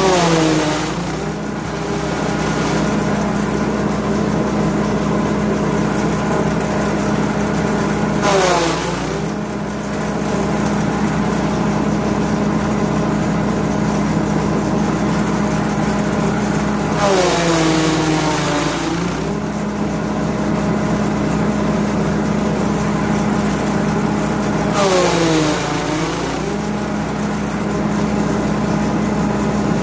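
Grass chopper driven by a 5.5 HP petrol engine, running steadily. Four times, about every eight seconds, the engine pitch sags and then recovers with a burst of hissing chopping noise, as the engine takes load from material fed into the blades.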